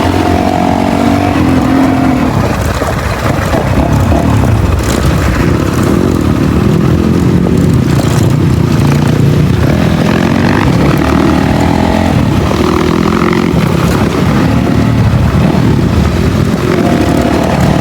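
Dirt bike engine running while riding, its pitch rising and falling again and again as the throttle is opened and eased off.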